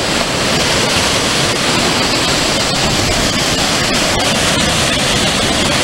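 Ocean surf washing in over the sand: a steady, loud rush of breaking waves and foaming water.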